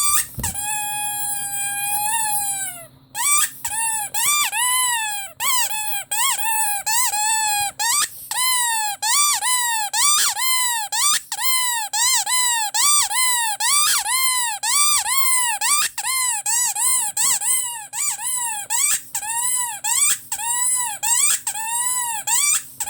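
Rubber squeaky toy being squeezed: first one long held squeak that sags in pitch as it ends, then a quick run of short rising-and-falling squeaks, about two or three a second.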